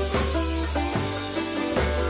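Background music: plucked notes over a low bass line.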